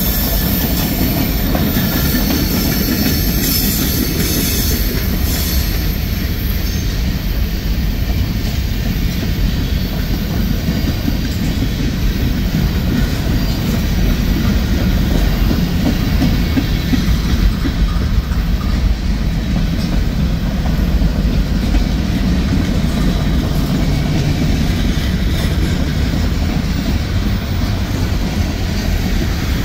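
Freight train cars rolling steadily past: steel wheels running on the rails, a constant, loud, low rumble.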